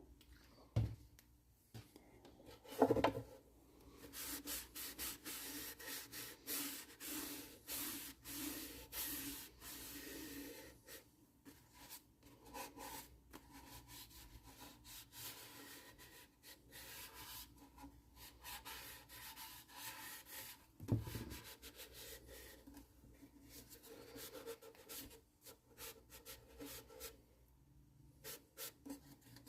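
Rapid back-and-forth rubbing strokes on the wooden body of a ukulele as its finish is worked in, busiest in the first third and lighter after that, with a few knocks of the instrument being handled.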